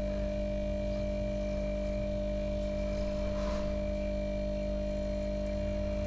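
Hot air rework station blowing steadily onto a phone's memory chip to melt its solder for removal, with a constant electrical hum.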